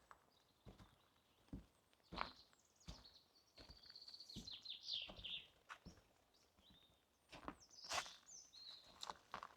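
Faint footsteps on a forest path at a steady walking pace. A songbird sings a quick trill that falls in pitch around the middle, and gives a few more high chirps near the end.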